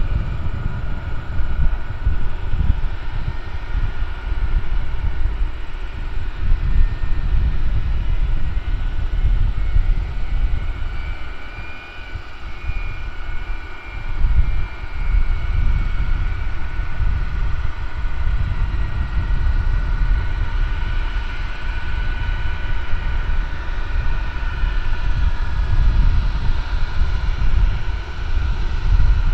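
Boeing 747's four turbofan engines at takeoff thrust as the jet lifts off and climbs away: a deep rumbling roar with a steady high whine above it.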